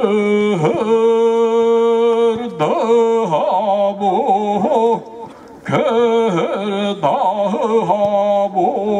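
A male olonkho storyteller singing unaccompanied in the Yakut epic style, holding long, low notes with a quivering, trembling ornament. The line breaks for a breath about five seconds in, then he sings on.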